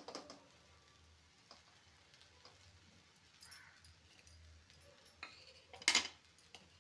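Spatula scraping through fried rice in a steel kadai right at the start, then a few faint ticks, and a single sharp clatter about six seconds in as the spatula is set down on a plate.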